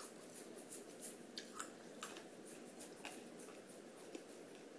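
Faint room hiss with scattered soft clicks and rustles, a few each second, of small handling noises close to the microphone.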